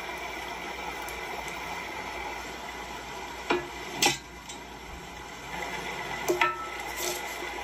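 Cooking sounds: several sharp clinks of a utensil against cookware, a pair about halfway through and a few more later, over a steady background hiss.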